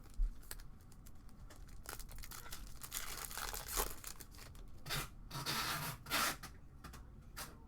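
A trading-card pack wrapper being torn open and crinkled, in several noisy rips and rustles over a few seconds.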